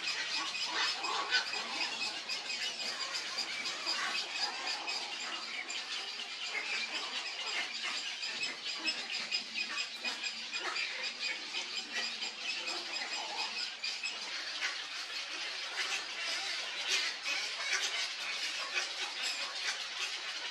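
Many birds at a cattle egret colony squawking and chattering, with countless short calls overlapping into a continuous din.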